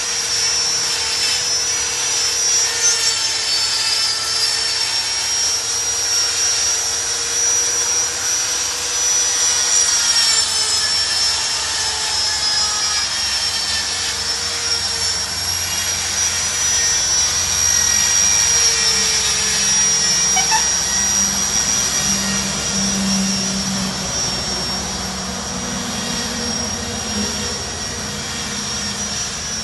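A power tool running continuously in a stone-carving yard: a high whine that dips in pitch now and then over a lower hum and steady noise.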